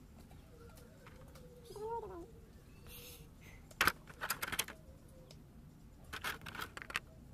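Crinkling of a clear plastic packaging bag and small clicks from handling a microphone's accessories, in two short bouts in the second half. A brief rising-and-falling call sounds in the background about two seconds in.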